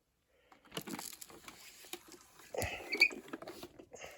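Hard plastic parts of a Bissell CleanView Revolution Deluxe bagless upright vacuum being handled and fitted back together, with light clicks and rattles that bunch up about two and a half to three seconds in.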